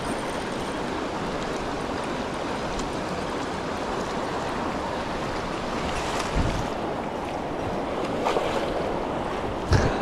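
Shallow mountain stream rushing over rocks, a steady wash of water close to the microphone. A dull thump about six seconds in and another near the end.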